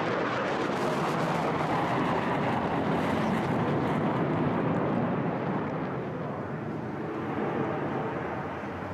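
Jet noise from an HAL Tejas fighter's single GE F404 turbofan as it flies rapid rolls, a steady rushing sound that fades over the second half as the aircraft draws away.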